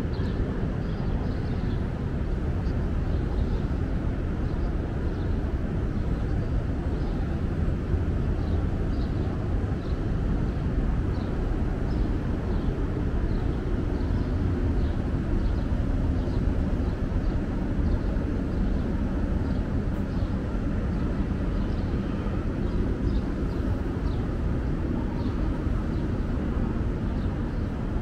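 Steady low outdoor rumble of city ambience, with faint short high chirps repeating about once a second.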